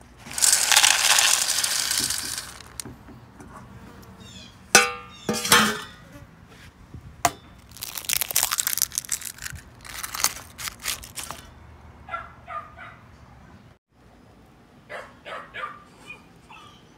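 Dry kibble poured from one stainless steel bowl into another, a loud rattle for about two seconds, followed by sharp clinks and more pouring and rattling. In the last few seconds dogs whine and yip in short calls.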